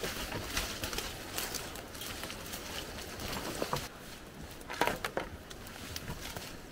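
Footsteps tramping through dense forest undergrowth: brush rustling and twigs and dead branches crackling and snapping underfoot, in an irregular scatter of sharp crackles, with a few louder snaps about five seconds in.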